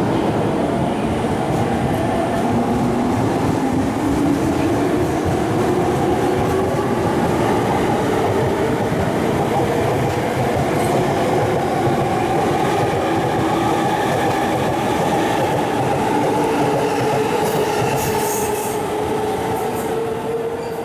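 Electric commuter train running through the station. Its motor whine rises in pitch over the first few seconds and then holds steady over the rumble of the wheels, with a few high clicks near the end.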